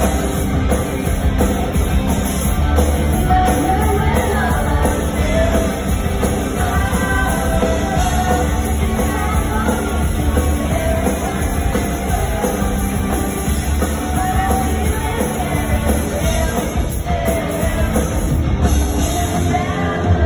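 Live rock band playing loudly: electric guitars, bass and drums, with a woman singing lead.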